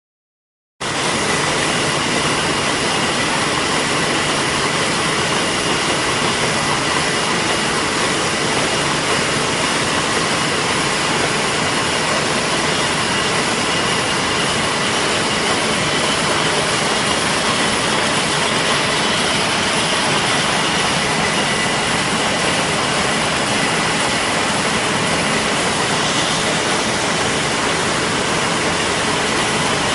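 ZF-323 courier envelope making machine running: a steady, dense mechanical clatter with a faint high whine over it. It starts suddenly about a second in and holds an even level.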